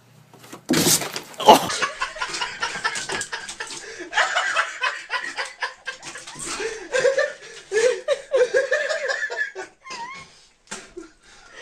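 People laughing in repeated bursts, starting with a loud outburst about a second in.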